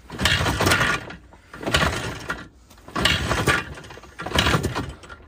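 IZh motorcycle's two-stroke engine being kick-started four times, about one kick every second and a half, each kick cranking it over without it firing. It fails to catch because there is a lot of water in its fuel.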